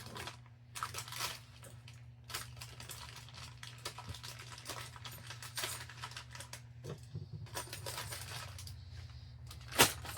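Hands rummaging through air-hose fittings and their packaging: irregular rustling, crinkling and small metal clinks over a steady low hum, with one sharp, loud clack near the end.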